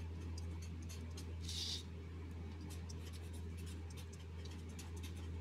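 Felt-tip marker writing on paper: a run of short, faint strokes, with one longer stroke about a second and a half in, over a steady low hum.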